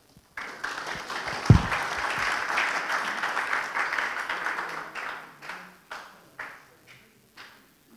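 Audience applauding, starting about half a second in and thinning into scattered single claps that die away over the last few seconds. A single low thump at about one and a half seconds is the loudest moment.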